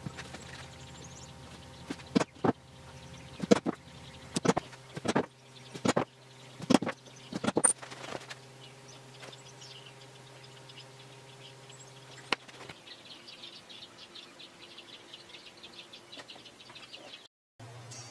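Sharp, irregular knocks and taps on a wooden box as it is handled and pressed together, about a dozen of them. Then the faint, quick scratching of a fine-tip marker writing on bare wood.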